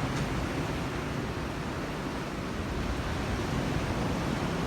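Ocean surf washing in as a steady rush, with wind rumbling on the microphone.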